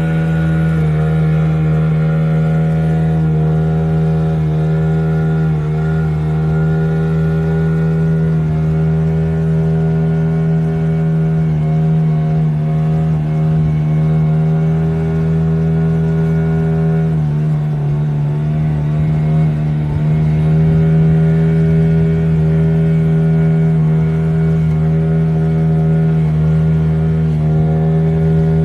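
Motorboat engine running steadily at speed, its pitch dipping briefly about two-thirds of the way through before settling again, over the rush of the boat's wake.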